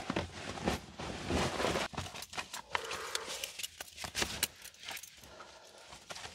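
Insulated canvas coveralls being pulled on: stiff fabric rustling, with scattered clicks and clinks of metal hardware, busiest at first and dying down near the end.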